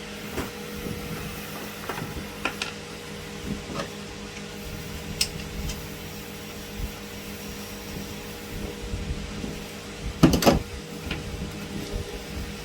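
Scattered light metal clicks from a cable terminal being fitted, then a brief burst of sharp snaps about ten seconds in as the last negative cable makes contact on a 24-volt battery circuit and throws a small spark. This is the normal inrush of completing the circuit, not a short. A steady electrical hum runs underneath.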